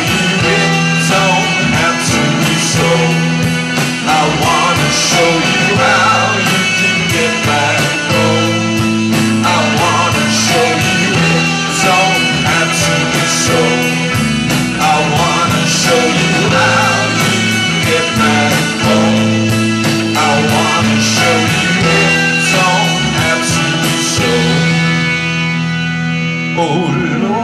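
Live rock band playing an instrumental stretch: electric guitars and bass hold chords over a steady drum beat. Near the end the drums drop out and the guitars ring on.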